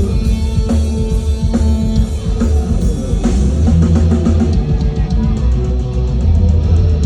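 Live rock band playing loudly: electric guitar, bass and drum kit.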